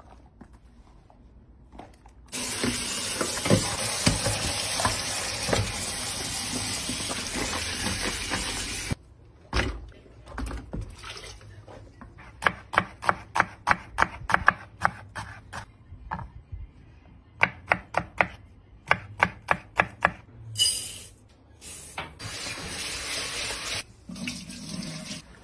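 Tap water running steadily into a metal tray of hollowed-out vegetables. The water then stops, and a quick run of sharp splashes and knocks follows as the vegetables are washed by hand. Near the end the water runs again.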